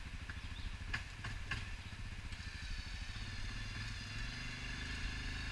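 Quad (ATV) engine idling steadily, with a few light clicks about a second in and a higher steady whine joining a little after two seconds.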